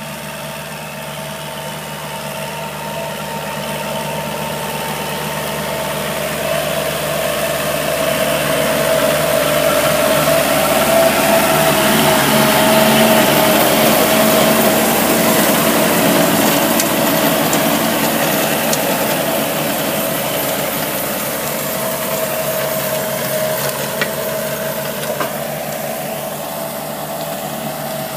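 Kubota L5018 tractor's diesel engine running under load as its rotary tiller churns through dry ground. It grows louder toward the middle and then eases off a little, with a steady tone that dips and rises in pitch near the end.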